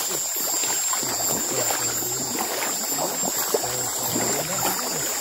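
Water sloshing and trickling, as when wading or moving through a river, over a steady high-pitched insect chorus.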